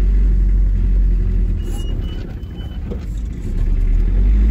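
Low road and engine rumble of a car in motion, heard from inside the cabin. It eases off for a second or so in the middle and then builds again.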